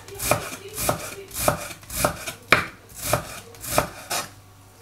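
Chef's knife dicing a red onion on a wooden cutting board: about eight even knife chops, a little under two a second, stopping shortly before the end.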